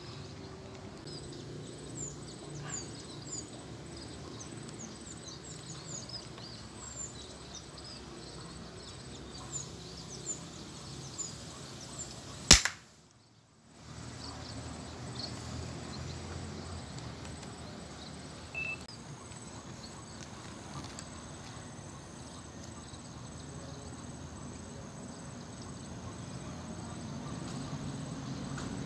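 A single sharp crack of a 4.5 mm air rifle shot, about halfway through, with the sound dropping out for a moment right after it. Before the shot, small birds give short, high chirps over a steady outdoor background.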